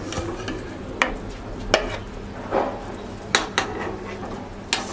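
A metal ladle clinks against a plate and pan about five times as boiled fish dumplings are lifted out of the water and set down. The clinks are sharp and separate, over a steady low hiss.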